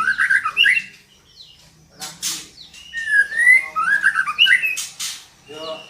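Female white-rumped shama calling: two phrases of sliding whistled notes mixed with harsh rasping notes, the first ending about a second in and the second starting about two seconds in.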